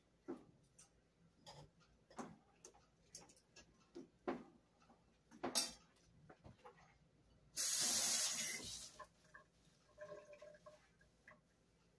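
A spoon stirring cooked rice in a metal pan, with scattered scrapes and knocks against the pan, then a loud, even hiss lasting about a second and a half, about seven and a half seconds in.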